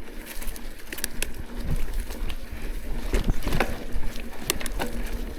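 Mountain bike rolling along a dirt singletrack, with irregular clicks and rattles from the bike over a steady low rumble of wind on the microphone.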